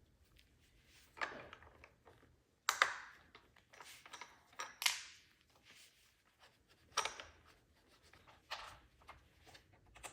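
Hard plastic parts of a Roomba 649 being handled, with about five separate clicks and scrapes a second or two apart.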